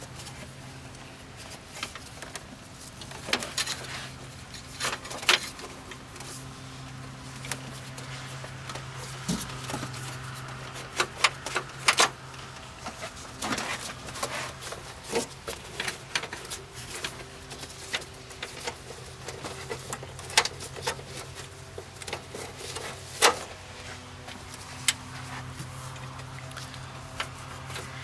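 Scattered light clicks and taps from a car's hood release cable being worked by hand through the front end behind the radiator, over a steady low hum.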